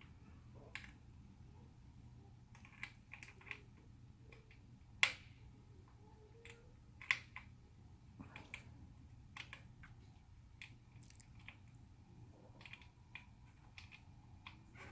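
Scattered light clicks and taps at an irregular pace, two sharper ones about five and seven seconds in, over a low steady hum.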